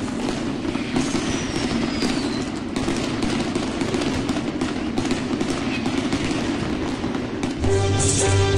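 Fireworks bursting and crackling in a dense, continuous stream, with one falling whistle about a second in. Music comes in near the end.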